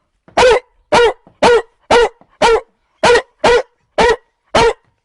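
A boy imitating a bulldog with his voice: nine short barks, about half a second apart.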